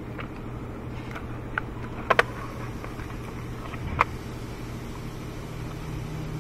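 A few sharp metallic clicks and taps as the throttle body and its bolts are handled against the aluminium intake manifold: a close pair about two seconds in and a ringing one about four seconds in. A steady low hum runs underneath.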